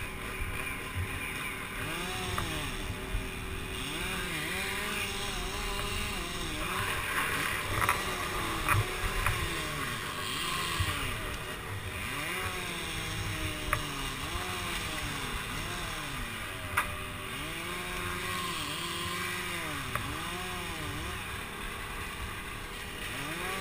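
Chainsaw engine running, its pitch rising and falling over and over, every second or two. A few sharp clicks stand out.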